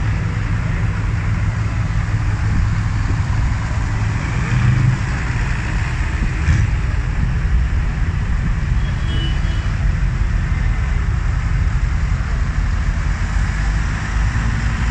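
A procession of large modern farm tractors driving past one after another, their diesel engines running with a steady deep rumble.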